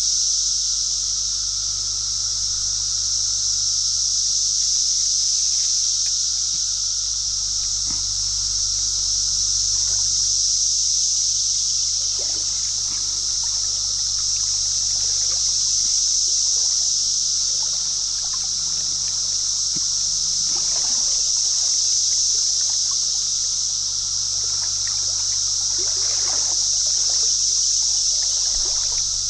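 Shallow creek water flowing and trickling, with a few faint light splashes, under a steady high-pitched hiss.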